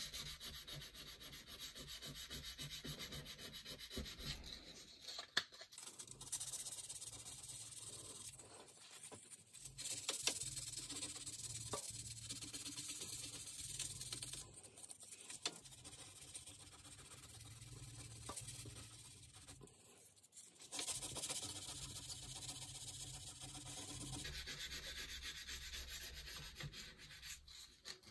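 800-grit sandpaper rubbed quickly back and forth by hand over dried filler on a pinball playfield, levelling it flush: a steady scratchy hiss that stops briefly a few times.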